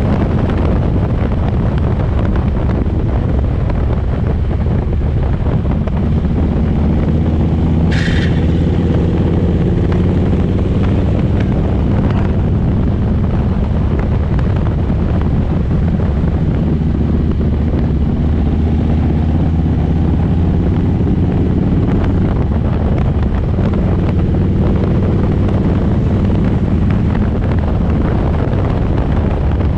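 Motorcycle engine running at a steady cruise, with wind buffeting the microphone. A brief high-pitched chirp cuts through about eight seconds in.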